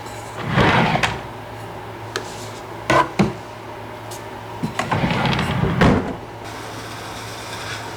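Household cleaning handling noises: a brushing, rubbing swish, a few sharp clicks and knocks, then a longer stretch of scrubbing or rubbing, over a steady low hum.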